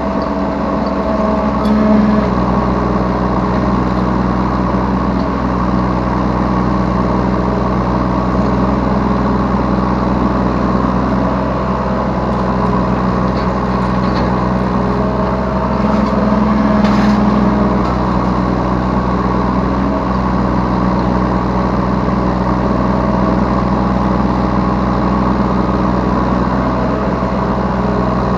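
Yanmar B3 Sigma 3-tonne mini excavator's diesel engine running steadily under hydraulic work, heard from the operator's seat. Twice, about two seconds in and again midway, a louder, brighter tone rises for a moment and drops back.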